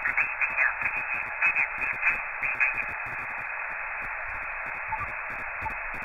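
Shortwave single-sideband receiver audio from an Elecraft KX2 transceiver's speaker: steady band hiss with faint, garbled snatches of voice in the first few seconds, as the operator listens for answers to his CQ call. The hiss cuts off abruptly at the very end.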